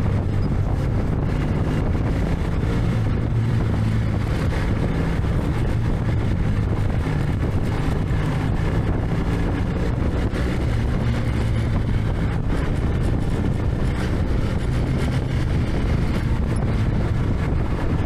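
BMW GS motorcycle engine running steadily under way, with wind noise on the microphone.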